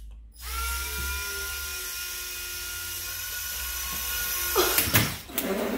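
Fly Nova flying spinner toy in flight, its small motor-driven propellers whirring with a steady high whine. The whine cuts off suddenly about four and a half seconds in, followed by a couple of knocks.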